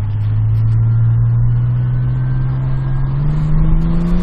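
A motor vehicle engine running and accelerating, its pitch climbing slowly, with a step up about three seconds in.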